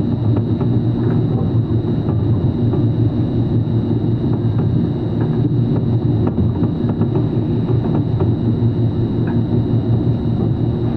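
Welding machine running with a steady low mechanical drone and a faint high whine, with a few faint scattered clicks.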